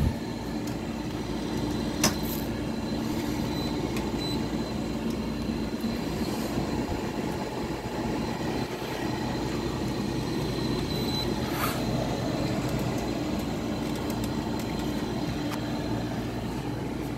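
Window air conditioner running: a steady mechanical hum of fan and compressor with a faint high whine. A sharp click comes about two seconds in and a softer one later.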